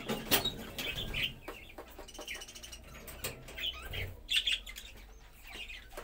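A flock of budgerigars chattering, with quick chirps, warbles and sharp clicks overlapping.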